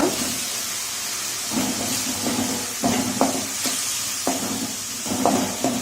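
Small onions (shallots) sizzling in hot oil with ginger-garlic paste as they are stirred, with a spoon knocking and scraping against the pan several times.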